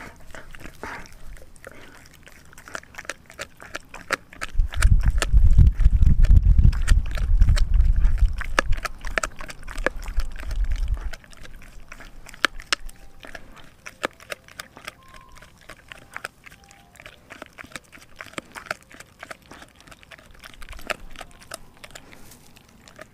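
A Doberman puppy gnawing a raw frozen pig's foot: a steady run of sharp crunching clicks as its teeth work the bone and skin. From about five seconds in to about eleven, a loud low rumble covers the chewing.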